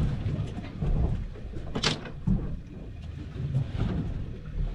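Wind gusting on the microphone aboard a small boat at sea, an uneven low rumble, with a short hiss just before two seconds in.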